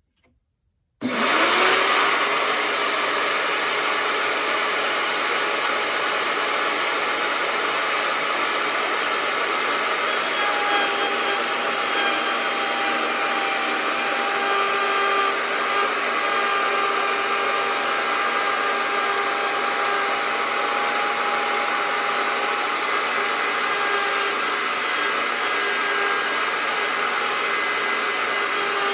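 Electric wood router mounted in a router table, switched on about a second in: it spins up with a brief rising whine and then runs loud and steady.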